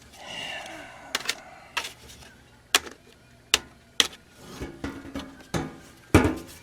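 Handling noise: a string of sharp, irregularly spaced clicks and light knocks, as small hard objects are picked up and set down, with a soft rustle near the start.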